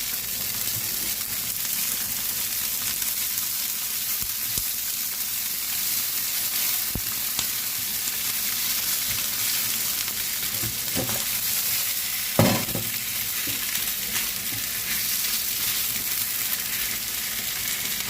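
Crab sticks frying in hot oil: a steady, even sizzle, with a few soft knocks, the loudest about twelve and a half seconds in.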